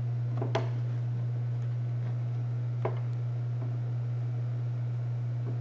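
A steady low hum, with two faint clicks of flat-blade screwdrivers twisting and prying at a plastic cowl-panel clip, one about half a second in and one near three seconds.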